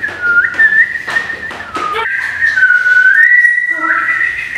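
A woman whistling a tune through pursed lips, one clear tone stepping and sliding from note to note, with some notes held for about a second. There are a few short knocks in the first two seconds.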